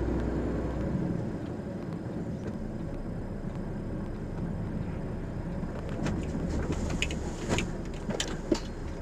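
Steady road and engine noise of a moving car heard from inside its cabin, with a few short sharp clicks in the last three seconds.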